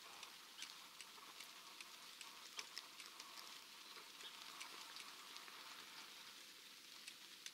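Near silence: a faint outdoor hiss with scattered soft ticks at irregular times.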